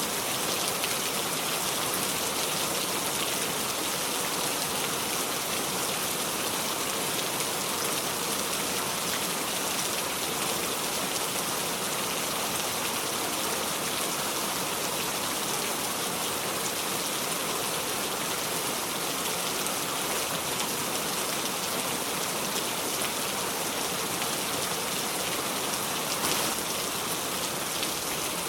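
Steady, heavy rain falling without thunder, a dense even hiss of drops on surfaces.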